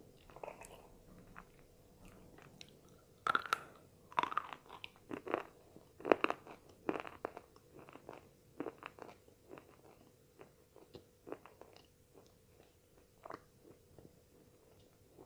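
Tigar brand slate pencil being bitten and chewed into, crisp crunches. They come thickest and loudest for a few seconds starting about three seconds in, then thin out to softer, scattered chewing crunches.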